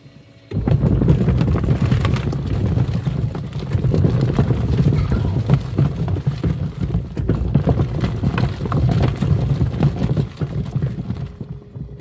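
Twin-tub washing machine's wash tub churning foamy water, with plastic toy animals knocking about inside. It starts abruptly about half a second in and dies down near the end.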